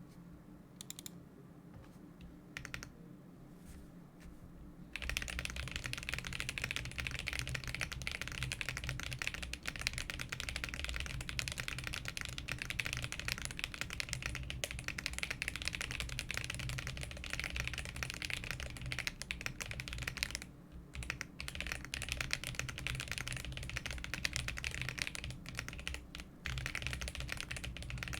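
Typing on a custom mechanical keyboard: a Sneakbox AVA in a polycarbonate case with lubed Betty switches, lubed Durock stabilizers and GMK Fox keycaps. A few single key presses at first, then fast continuous typing from about five seconds in, broken by two brief pauses in the second half.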